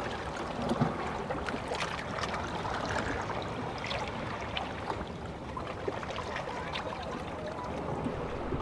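Seawater lapping and sloshing in a rock crevice along a rocky shoreline, with a steady wash of many small splashes, trickles and crackles.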